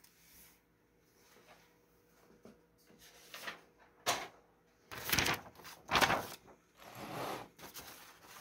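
Quiet at first, then a couple of short handling knocks, followed by paper rustling and sliding for a couple of seconds as a sheet of drawing paper is picked up and handled over a wooden workbench.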